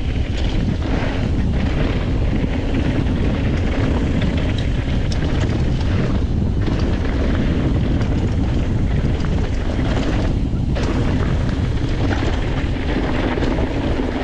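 Steady wind buffeting the microphone of a mountain bike in motion, with rolling noise from the tyres on a rough trail.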